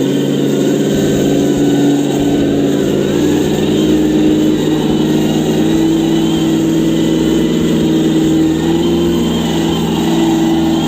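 Simulated engine sound from the Yikong Bronco RC truck's sound module: a steady running engine note that rises a little in pitch a few times.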